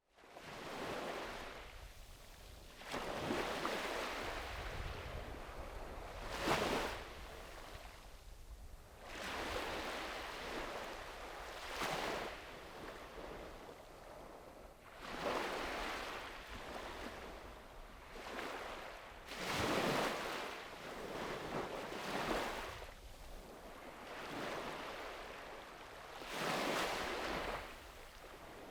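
Sea waves breaking and washing up a beach: about ten swelling washes, one every two to four seconds, over a steady low rumble.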